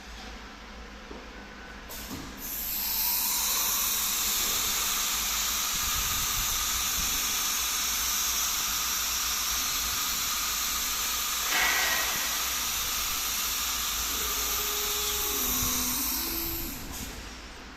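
An automatic-tool-change CNC router's spindle speeds up to a steady high-pitched whine with a hiss about two and a half seconds in, with a brief louder burst just before the two-thirds point. It then winds down near the end.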